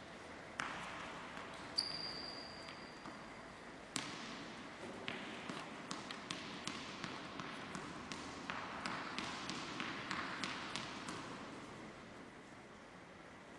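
Tennis ball bounced on the hard floor of a large indoor sports hall: a string of sharp, echoing taps at two or three a second, with one louder hit about four seconds in.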